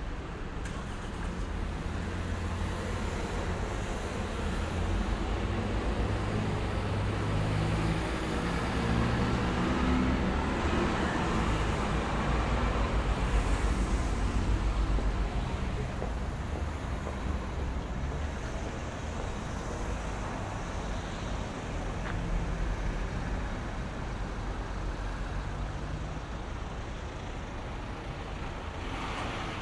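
Road traffic on a town street: motor vehicles running past with a steady low engine rumble and tyre noise, swelling to its loudest about halfway through as traffic passes closer.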